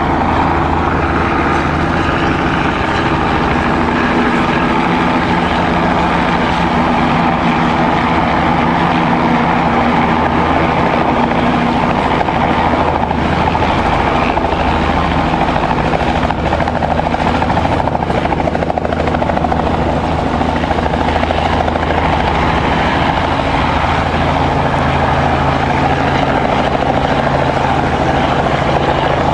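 Remote-controlled agricultural spray helicopter running steadily, its engine and rotors giving a constant, even drone.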